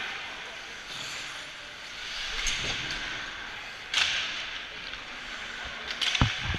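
Ice hockey game sound at rinkside: a steady hiss of skates on the ice and arena noise, with a single sharp crack about four seconds in and a few dull knocks near the end.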